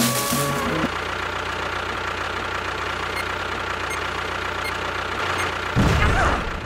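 A steady engine idling, then a sudden loud low blast about six seconds in, the sound of an explosion.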